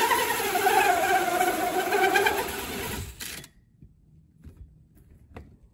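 Cordless drill spinning a 5-inch hole saw through the plastic wall of a septic tank: a steady motor whine with the saw teeth grinding into the plastic. The drill stops about three and a half seconds in, leaving a few faint clicks.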